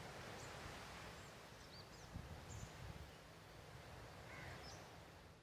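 Faint outdoor ambience: scattered short, high bird chirps over a low, steady rumble.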